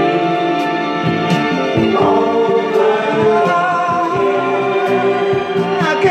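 Group vocal singing over music, with several voices holding and bending notes in harmony.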